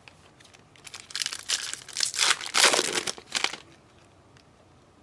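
Plastic wrapper of a trading-card pack crinkling and tearing open: a run of sharp crackles lasting about two and a half seconds, loudest in the middle.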